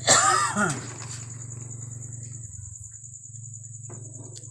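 Crickets trilling steadily at a high pitch over a low steady hum. A brief loud sound with a rising and falling pitch cuts in at the very start.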